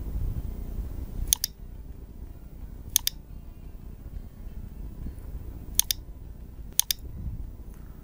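Computer mouse button clicked in four double-clicks, spaced irregularly over several seconds, over a low steady hum.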